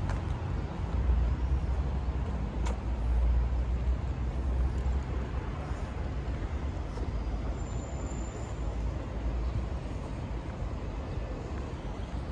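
Steady city street ambience: road traffic noise with a fluctuating low rumble, and a brief thin high squeal about eight seconds in.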